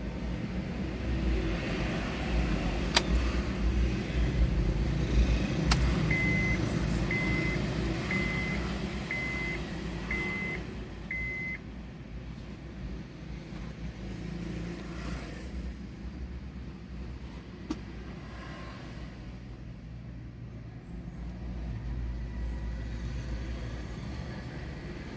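Steady low vehicle rumble with two sharp clicks, then six short high electronic beeps about a second apart.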